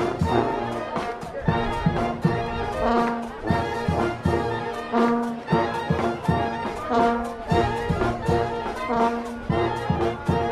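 Street brass marching band playing a tune: trombones and trumpets over a steady drum beat.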